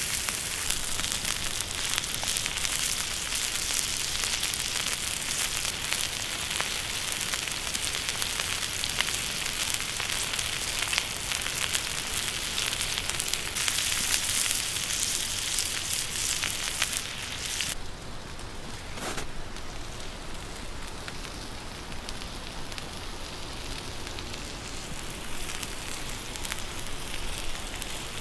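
Goat meat frying on a hot rock over a wood fire: a steady sizzle full of small pops. About two-thirds of the way through it cuts abruptly to a quieter, duller crackle.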